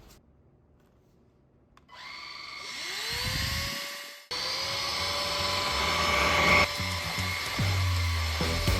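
LG CordZero A9 Air cordless stick vacuum switched on: its motor spins up in a rising whine about two to four seconds in, then runs at a steady high whine.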